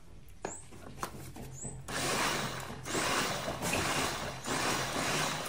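A few clicks, then a small portable cup blender starts about two seconds in and runs, chopping strawberries with milk, its noise swelling and dipping as the pieces churn.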